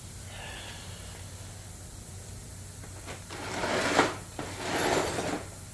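Two pulls on a Craftsman pressure washer's recoil starter, each a short rasping whirr of rope and cranking engine, the second following about a second after the first. The engine cranks but does not fire: it won't start even on fresh gas.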